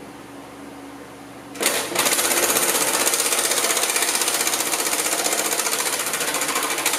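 Cordless impact driver hammering on a bumper mounting nut, loosening it, starting about a second and a half in and running on as continuous rapid hammering.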